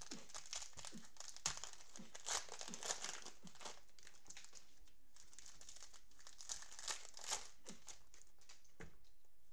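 Plastic cellophane wrapper of a 2020 Panini Prizm football cello pack being torn open and crinkled in the hands, a run of crackles with several louder crinkles that dies away near the end.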